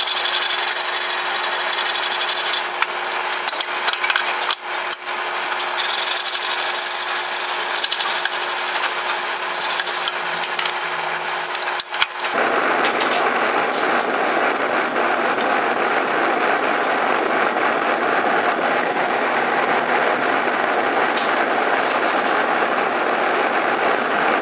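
A hand file rasps in strokes across a steel awl blank clamped in a wooden jig. About halfway through it gives way abruptly to the steady, even rush of a small gas forge's burner.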